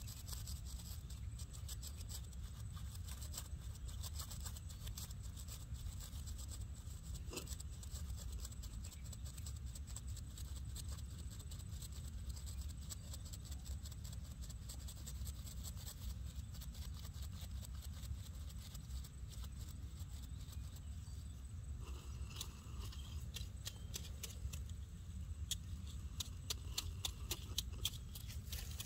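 Low rumble of wind on the microphone, with scattered faint clicks and rustles that come thicker and louder in the last several seconds.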